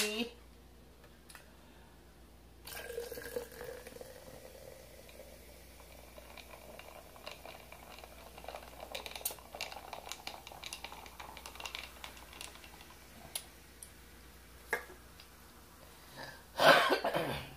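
Dark soda poured from a can into a glass mason jar, splashing into the jar while the foam fizzes and crackles for several seconds before it settles. Near the end there is one short, loud throat noise.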